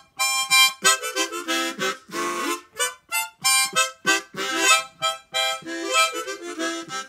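Harmonica playing a lively tune in short, quick phrases with brief breaks between them.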